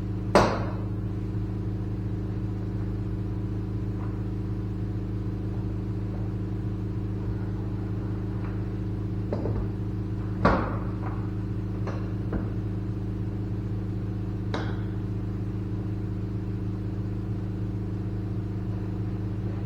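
A steady mechanical hum from running shop machinery, with sharp metal knocks and clicks over it. There is a loud one right at the start, another about halfway, and several smaller ones after, as the hydraulic motor housing is clamped in a vise and worked on.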